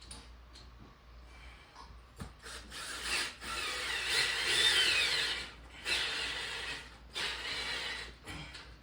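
Cordless drill driving screws into a concrete block wall, running in several bursts of a few seconds each with short pauses between, starting about two seconds in.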